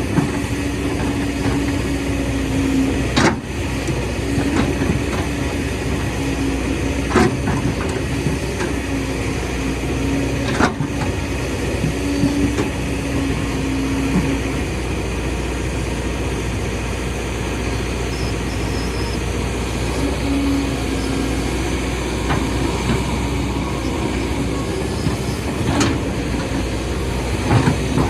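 Excavator's diesel engine running steadily, with a humming tone that comes and goes and a few sharp knocks spread through.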